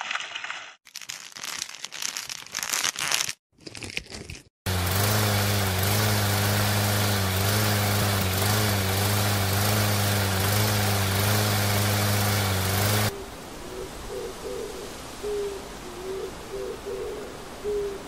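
Irregular noisy scrapes and rustles for about four seconds, then a tractor-like engine running steadily at a constant low pitch for about eight seconds before cutting off abruptly. After that comes outdoor ambience with a bird's short, repeated low hooting calls.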